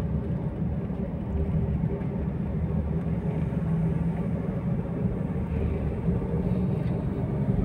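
A car being driven, heard from inside the cabin: a steady, low engine and road rumble.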